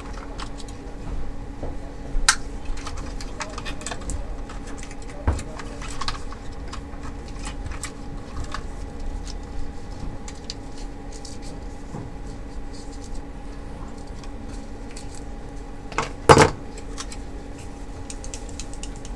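Plastic projector parts being handled and pried loose as the cooling fan and its duct are taken out, making scattered small clicks and rattles, with a louder knock about sixteen seconds in. A steady low hum runs underneath.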